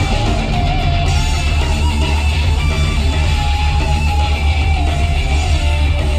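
Loud music with a heavy, steady bass playing throughout.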